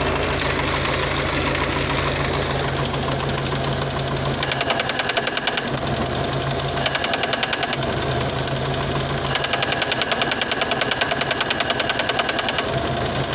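MTZ-50 tractor's four-cylinder diesel running, with a rapid metallic knock that comes and goes in three spells in the second half, the longest near the end. The owner cannot tell what is causing the knock.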